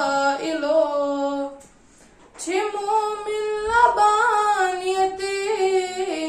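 A boy singing a naat unaccompanied, in long held, wavering notes, with a short pause for breath about two seconds in.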